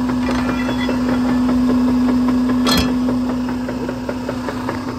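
Logging truck's diesel engine idling with a steady hum, and one sharp click about three seconds in.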